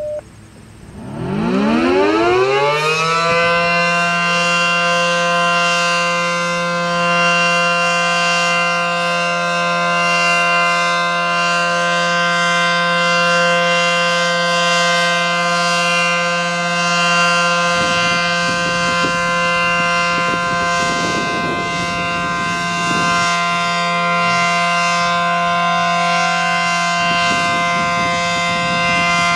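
ACA Allertor 125 rotating dual-tone outdoor warning siren (9/12 ports) winding up about a second in, its pitch rising for a couple of seconds to full speed. It then holds a steady two-tone alert, swelling and easing gently in loudness as the horn turns.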